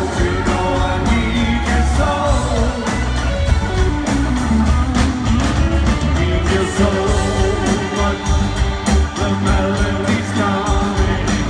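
Live rock band playing a song: a male lead vocal over electric guitars, bass and a steady drum beat.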